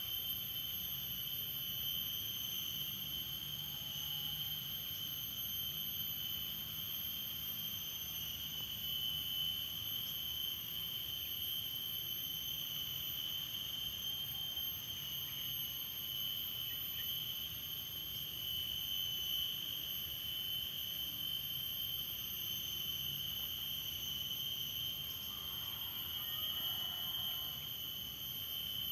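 Steady, high-pitched insect chorus: a continuous shrill drone that never breaks.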